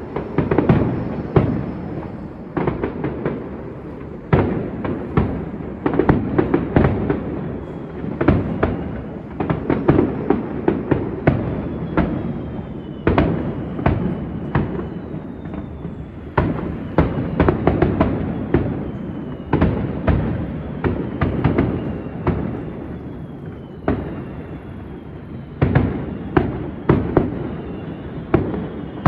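Fireworks display: a steady barrage of bangs and crackling, several a second at the busiest, with faint high whistles that fall in pitch now and then.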